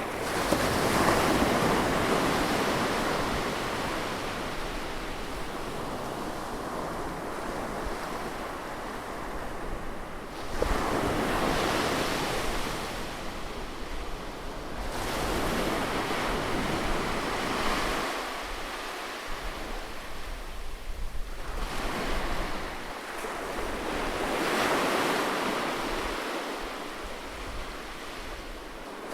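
Ocean surf on a beach: waves break and wash in one after another, with four big swells of rushing water several seconds apart, the loudest right at the start.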